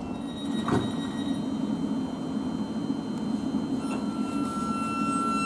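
Thameslink Class 700 electric multiple unit standing at a platform: a steady low hum with a high, steady whine from its electrical equipment that comes in strongly about four seconds in. A single short click about a second in.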